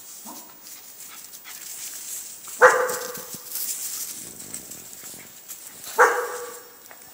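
Young cairn terrier barking twice, about three seconds apart.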